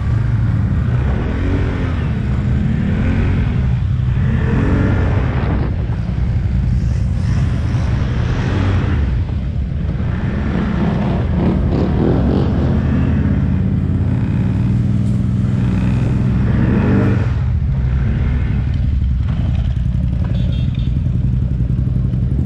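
ATV engine running hard off-road, its pitch rising and falling as the throttle is worked repeatedly.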